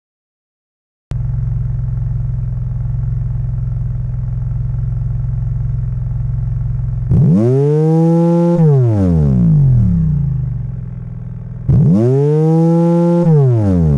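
Synthesized exhaust sound of a 90-degree V6 with uneven firing intervals, from an engine simulator. After about a second of silence it idles steadily. It is then revved sharply twice, each time held at high revs for a moment before the pitch falls back to idle.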